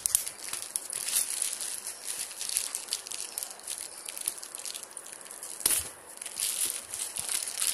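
Plastic courier mailer bag being torn open and crinkled by hand: a continuous run of crackly rustling and ripping, with one louder crackle late on.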